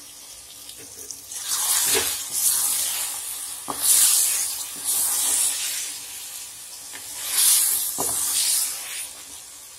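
Chicken pieces in thick masala sizzling in oil in a pressure pan as a wooden spoon stirs them, the hiss swelling in three waves with the strokes. A few sharp knocks of the spoon against the pan.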